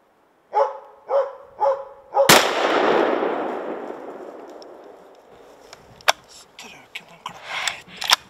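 A hunting dog barks four times at a moose it is holding at bay. About two seconds in comes a single rifle shot, its echo dying away over the next couple of seconds: the shot that drops the moose.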